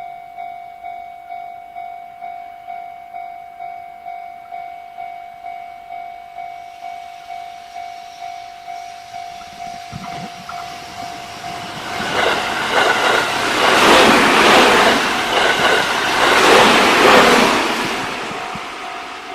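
Japanese level-crossing warning bell ringing in a steady electronic clang about twice a second, then a JR Central electric commuter train passes over the crossing, its wheels and running gear loud for several seconds before fading, with the bell heard again near the end.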